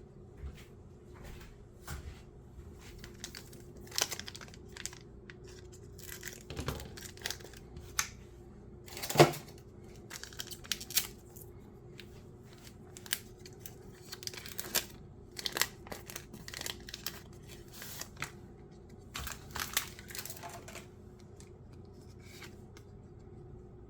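Foil Pokémon booster pack wrappers crinkling and tearing open, heard as a string of short, irregular rustles and snaps. The loudest comes about nine seconds in.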